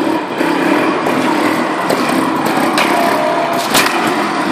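Trials motorcycle engine running close by as the bike climbs a flight of stairs, with a few sharp knocks about three to four seconds in.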